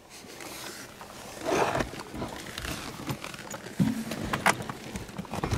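A man breathing hard and letting out a short grunt while climbing down a metal ladder with heavy gear, with a couple of sharp knocks on the rungs.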